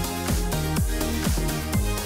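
Background electronic music with a steady beat, about two beats a second.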